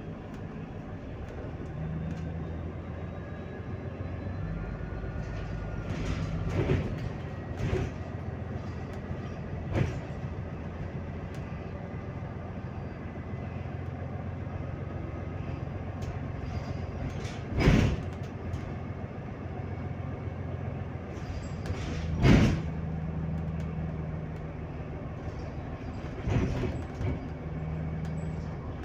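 Cabin noise of a Solaris Urbino 18 IV Hybrid articulated city bus under way: a steady low drive hum, broken by a few sharp knocks and rattles from the body, the two loudest about 18 and 22 seconds in.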